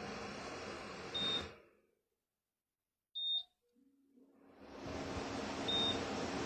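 Philips tower fan running with a rush of air, then a short high beep and the air noise dies away to silence. Another beep, then a low steady motor hum starts and the rush of air builds up again as the fan spins up, with one more beep near the end.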